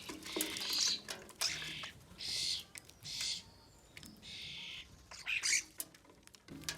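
Small garden birds calling in short, scratchy bursts, one after another, with a few light taps between them.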